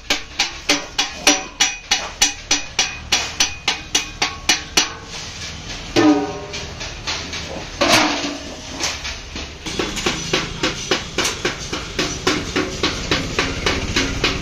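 Hammer beating on a galvanized sheet-metal tub, rapid even blows about four or five a second, which stop about five seconds in. Two ringing metal clangs follow, tubs knocking together as they are stacked.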